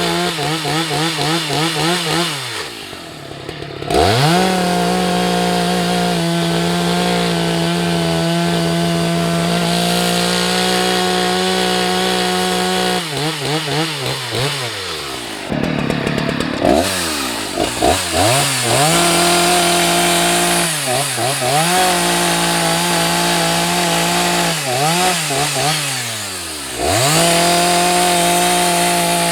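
Husqvarna 181 SE two-stroke chainsaw running at full throttle through firewood cuts, its note held steady for long stretches. Several times it drops off throttle, then revs straight back up.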